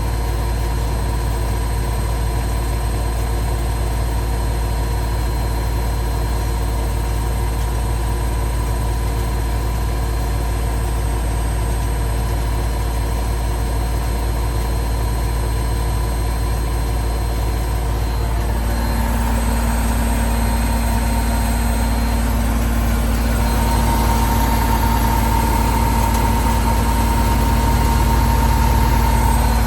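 Washing machine motor and drum spinning with a steady whine and hum. The spin speeds up in the last third, the pitch and loudness stepping up twice.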